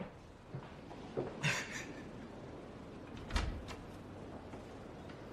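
Door sounds in a quiet room: a few soft knocks, a brief swish about a second and a half in, and a dull thump a little past three seconds.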